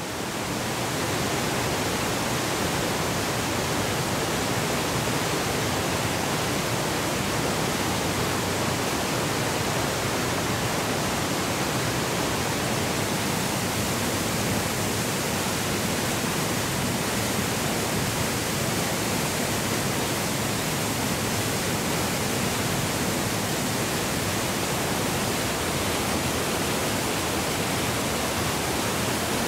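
Steady rushing roar of a waterfall and stream cascading over rocks, fading in over the first second.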